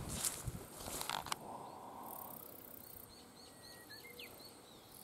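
Footsteps and rustling through grass in the first second and a half, then a faint, quick series of short high chirps from a small bird about three and a half seconds in.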